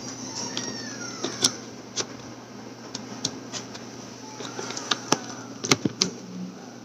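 Scattered sharp plastic clicks and knocks from a Play-Doh extruder toy being handled, its orange shape disc and housing fiddled with by hand; a quick cluster of louder clicks comes near the end.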